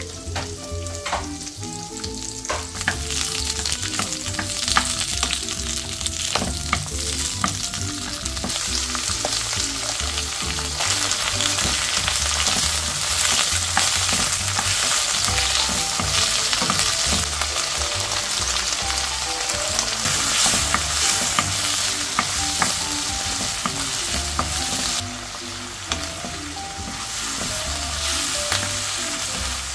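Garlic scapes sizzling as they stir-fry in hot vegetable oil in a wok, with a wooden spatula clicking and scraping against the pan. The sizzle builds a couple of seconds in and eases off noticeably near the end as the heat is turned down.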